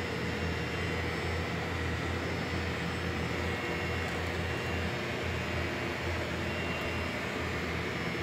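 Steady low machinery hum with a faint high whine over it, unchanging throughout.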